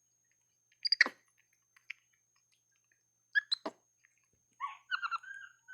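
Young capuchin monkey eating insects: a few sharp crunches and clicks, then a run of high, chirping calls that bend in pitch near the end.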